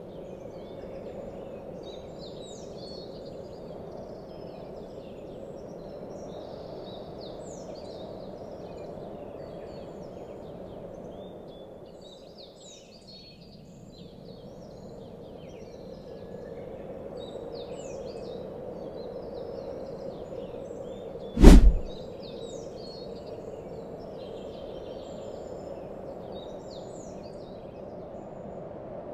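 Small birds chirping many times over a steady low hum, with one loud, sudden thump about three quarters of the way through.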